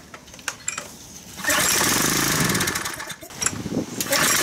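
Briggs & Stratton 675 series engine on a Craftsman pressure washer being pull-started. It fires about a second and a half in, runs for about a second and a half and dies, then catches again near the end on another pull. Starting and then dying like this is what the mechanic puts down to a clogged carburetor main jet.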